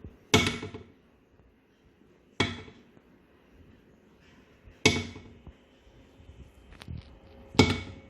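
Four sharp, loud strikes, roughly two and a half seconds apart, each dying away within about half a second.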